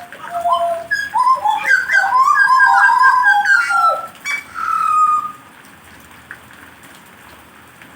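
A songbird singing a fast run of loud, clear whistled phrases with quick up-and-down pitch glides; the song stops about five seconds in, leaving a faint steady background hiss.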